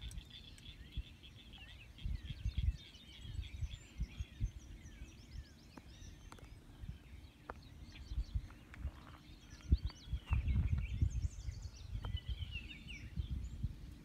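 Songbirds chirping and trilling continuously over gusts of wind buffeting the microphone, the gusts strongest a little past the middle.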